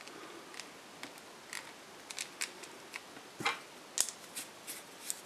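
Small scattered clicks and ticks from a plastic bicycle-reflector bracket being handled and worked with a screwdriver, with a couple of sharper clicks about three and a half and four seconds in.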